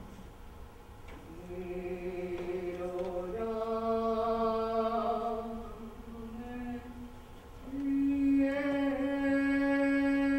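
A woman's voice singing unaccompanied: three long held notes, each a step higher than the last, the third and loudest starting about three-quarters of the way through, with a slight waver.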